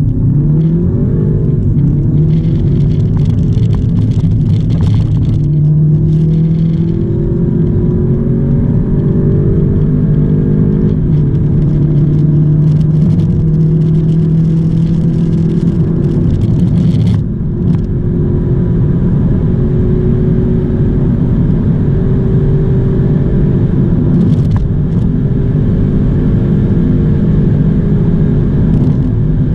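2.0-litre turbocharged four-cylinder TFSI engine of an Audi A1 40 TFSI at full throttle, heard from inside the cabin, accelerating from about 30 to nearly 200 km/h. Its pitch climbs through each gear and drops back at the quick upshifts of the six-speed S tronic dual-clutch gearbox, from first gear up to fourth.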